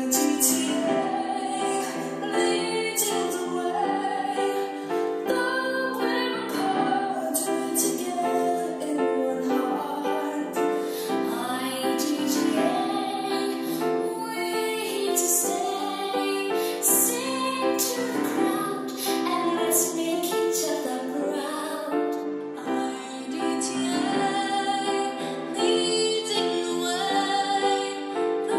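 Girls and young women singing solo in turn over instrumental accompaniment, the voice passing from one singer to the next as the recordings are cut together.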